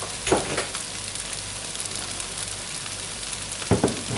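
Rice and vegetable mixture sizzling steadily in a frying pan, with a brief clatter of a utensil against the pan just after the start and again near the end.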